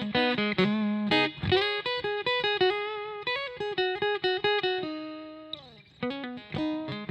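Godin A6 hybrid guitar played as single-note lines on its piezo acoustic sound, amplified through a Fender Hot Rod Deluxe. About a second and a half in there is a brief string scrape, and near the end a held note slides down in pitch and fades before the picking resumes.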